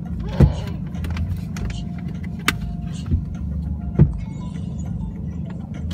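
Aerial firework shells bursting: four sharp bangs a second or so apart, over a steady low rumble.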